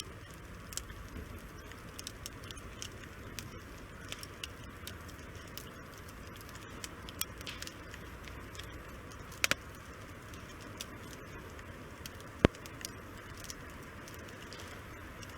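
Firewood burning in a tent-Mark DESIGNS Tonbi fire grill, crackling with irregular small pops over a steady low hiss of the flames. A pair of sharper pops comes a little past halfway, and a single loud snap about three seconds later.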